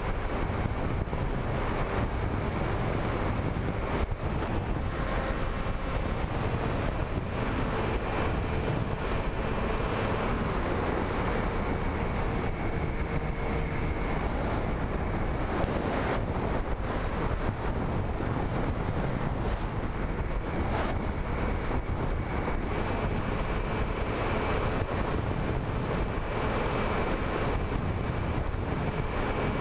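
Wind rushing over the microphone of a camera riding on a flying RC wing, with the faint steady whine of the wing's motor and propeller underneath, its pitch shifting a little as the plane manoeuvres.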